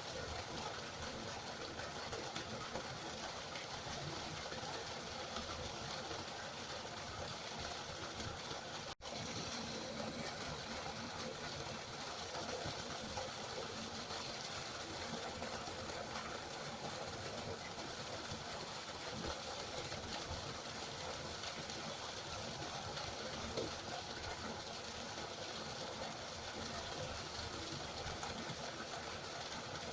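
River water rushing in a steady, even wash, with a momentary dropout about nine seconds in.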